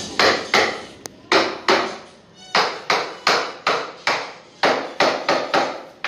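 Hammer striking and breaking up ceramic floor tiles to remove them: repeated sharp blows, about three a second, with a short pause about two seconds in.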